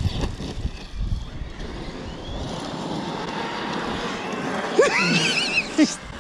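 Large electric RC trucks racing over loose stones and dust, a steady rushing noise with wind on the microphone. A voice calls out briefly about five seconds in.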